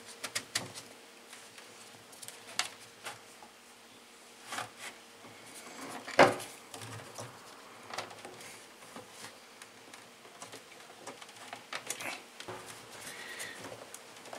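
Plastic parts of a Lorenzetti Jet Turbo electric shower being handled and twisted back together: scattered light clicks and knocks of plastic on plastic, with one sharper knock about six seconds in.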